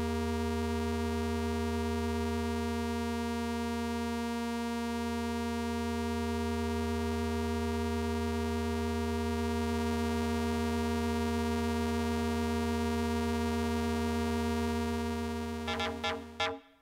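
Steady droning synthesizer tone from a Eurorack modular, several oscillator signals mixed through an Arkan voltage polarizer, its level dipping a little as the mix knobs are turned. Near the end it switches to a quick run of short rhythmic synth hits.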